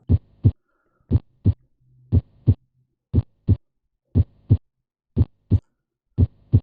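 Normal heart sounds from an auscultation recording: a lub-dub pair (first and second heart sounds) about once a second, seven beats, with no extra sound before the first heart sound.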